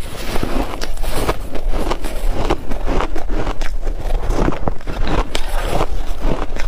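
Close-miked crunching of shaved ice: mouthfuls chewed and a metal spoon scraping and digging into a tray of loose shaved ice, heard as a dense run of irregular crackling crunches.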